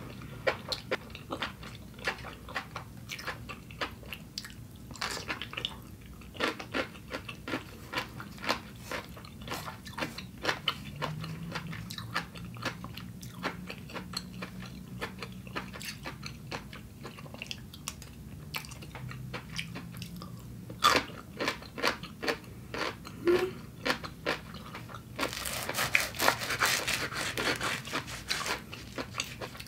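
Mouth sounds of someone eating noodles: chewing and biting, with many small wet clicks. Near the end there is a few seconds of denser scraping as a knife saws through a flatbread on a wooden board.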